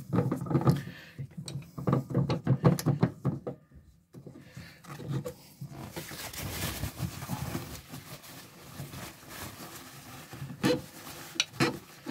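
Nitrile-gloved hands turning a spin-on Bosch diesel fuel filter onto its head: quick rubbing and squeaking strokes of glove on the metal canister for the first few seconds, then softer rustling, and a few scrapes near the end as paper towel wipes around it.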